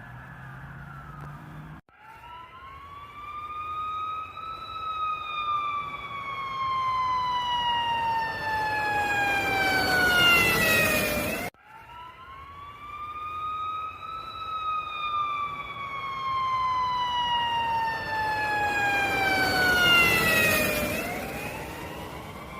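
A siren wailing twice. Each wail rises in pitch over a couple of seconds, then falls slowly and grows louder, and the first breaks off suddenly about halfway through.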